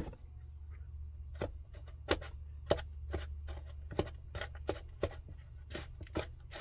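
Light clicks and knocks of kitchen utensils against containers, coming irregularly about one or two a second, over a steady low hum.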